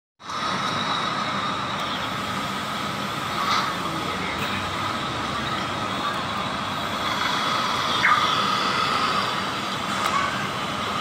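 Steady roadside traffic noise: an even hum of engines running close by, with a slightly brighter accent about eight seconds in.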